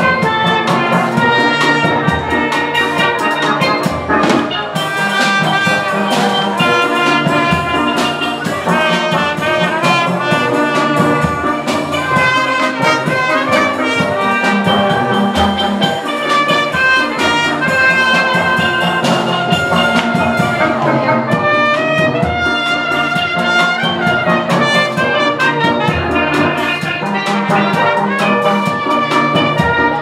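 Live steel band music: steel pans and a drum kit keep up a steady groove while a trumpet plays the melody over them.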